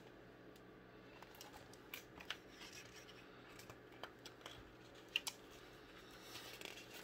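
Picture-book pages being handled and turned: soft paper rustling and a few light clicks and taps, starting about a second in.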